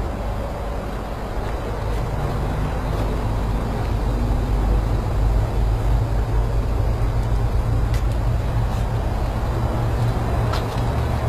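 Diesel truck engine idling, heard close up in the open engine bay: a steady low drone that grows a little louder a few seconds in.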